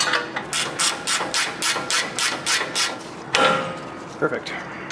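A hand wrench working the nut off a tie rod end's threaded stud, metal on metal: a steady run of sharp clicks, about four a second. About three and a half seconds in comes a single louder, ringing metal clink.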